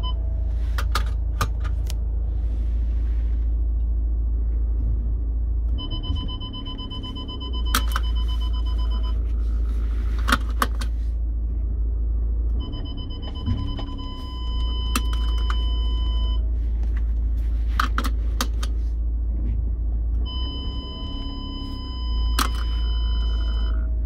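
VW Transporter T6 engine idling in the cabin. The seat belt buckle is clicked open and shut again and again, and each time the warning chime sounds as a steady electronic tone for about three seconds, three times in all. Each time there is also a brief motor whirr as the electronic parking brake applies itself because the belt is unfastened.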